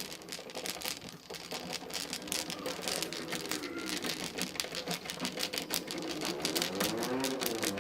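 Rapid small clicks and rattles of door lever-set parts being handled and worked into alignment on the door. A pitched sound that rises and falls comes in a few seconds in and again, louder, near the end.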